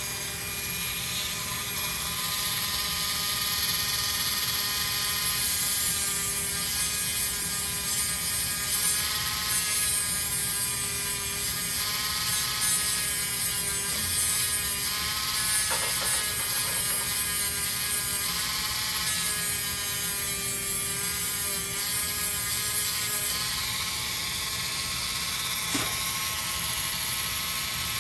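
Handheld Dremel rotary tool running with a steady high whine, its sanding wheel grinding a wooden dowel plug down flush with the guitar body; the pitch wavers slightly as the wheel is pressed into the wood.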